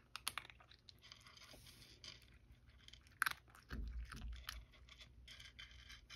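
Cat chewing dry kibble from a dish: a run of small crunches and clicks, with one sharper click about three seconds in and a brief low rumble just after it.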